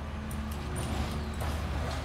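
Diesel engine of an Autocar side-loading garbage truck running at idle, a steady low rumble.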